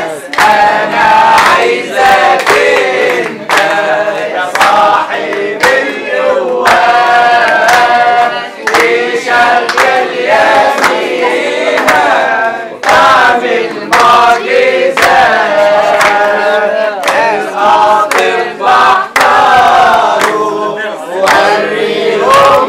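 A crowd of many voices singing and calling out together, loud and continuous, with held sung notes rising above the general noise of the crowd.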